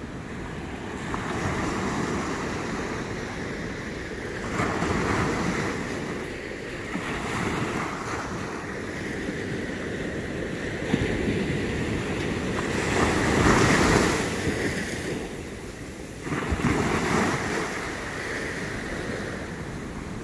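Ocean surf breaking and washing up a sandy beach, swelling every few seconds, with the loudest wave about two-thirds of the way through. Wind rumbles on the microphone underneath.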